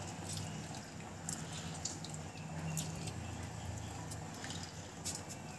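Lemon juice dripping and splashing into a pot of hot water as a lemon half is squeezed over it: scattered small drips and ticks over a low steady hum.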